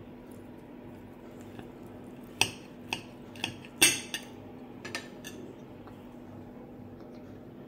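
A metal knife and fork clinking and scraping on a glass plate while cutting food: a run of about seven sharp clinks from about two and a half to five seconds in, over a low steady hum.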